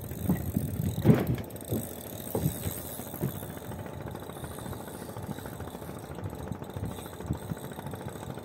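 Boat engine running steadily, with several knocks and thumps in the first few seconds, the loudest about a second in.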